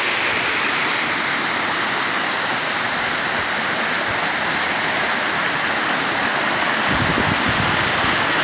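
Waterfall rushing steadily, a loud, even roar of falling water. A low rumble joins in about seven seconds in.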